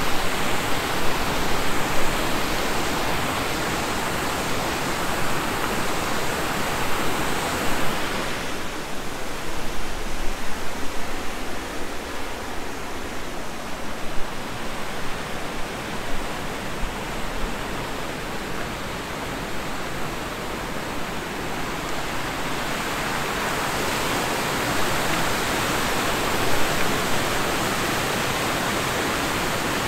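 Rapids of a river pouring over a weir and down a rocky waterfall: a steady rush of water. It grows quieter about a third of the way in and louder again in the last third.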